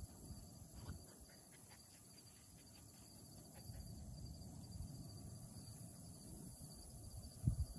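Steady high-pitched insect chorus in the field, with a low rumble on the microphone and one low thump near the end.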